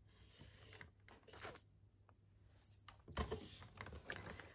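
Quiet handling of a cardboard box of nail kit products: soft rustling and light taps and knocks as it is moved by hand, loudest about three seconds in.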